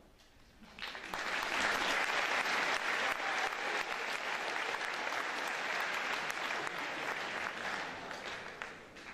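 Audience applauding: the clapping starts about a second in, holds steady, and dies away near the end.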